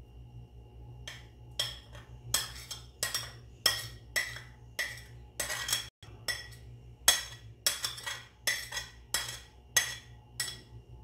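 Metal fork knocking and scraping against a ceramic plate, pushing frozen ginger, garlic and green chilli paste off into a glass dish of chicken: a run of sharp ringing clinks, about three a second, starting about a second in.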